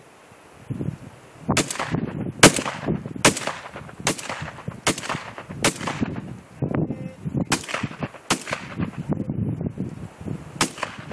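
Shotgun fire: a quick string of about nine sharp shots, mostly under a second apart, with two brief pauses. Wind rumble runs underneath.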